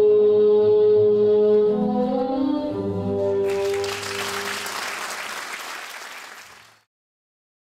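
Dance music ending on long held notes. About three and a half seconds in, audience applause takes over, fades, and cuts off to silence near the end.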